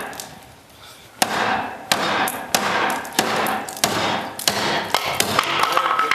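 Knife blade chopping through cutting targets in quick succession, about two sharp chops a second, starting about a second in.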